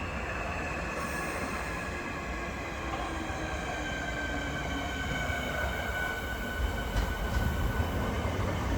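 Metro-Cammell-built Class 465/2 Networker electric multiple unit coming in, its traction motors whining in several steady tones that sink slowly in pitch as it slows, over a low rumble that grows louder near the end.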